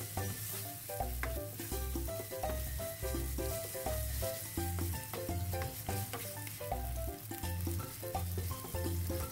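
Ground meat sizzling as it is stir-fried and stirred with a spatula in a nonstick frying pan, under background music with a steady bass line and melody.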